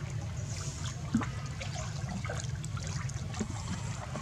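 Young long-tailed macaques swimming in a muddy pond, the water splashing and trickling around them, over a steady low rumble. One louder splash comes about a second in.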